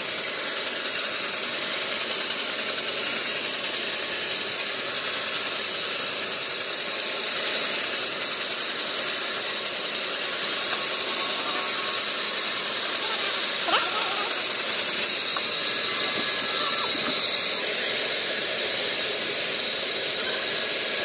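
Large vertical band saw running steadily while a log is fed through its blade and sawn lengthwise, with one sharp knock about two-thirds of the way through.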